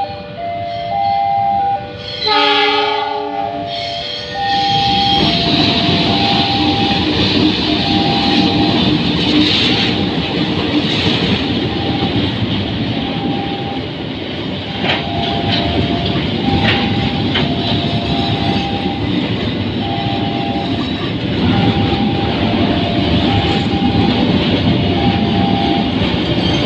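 A CC 206 diesel-electric locomotive sounds a chord horn for about two seconds, then a long train of flat wagons loaded with rails rolls past with a steady rumble and wheel clatter, and a few sharp clanks near the middle. Throughout, a level-crossing alarm repeats a two-tone chime.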